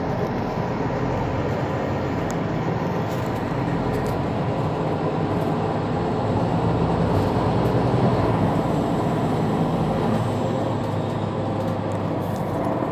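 Mercedes-Benz Citaro C2 city bus driving with its engine running steadily, getting a little louder about two-thirds of the way through and then easing off.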